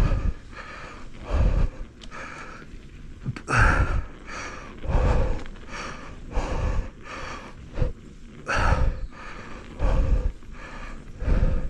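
Heavy, rhythmic breathing of a mountain biker working hard on the bike, one loud breath about every second or so, each hitting the microphone with a low rumble.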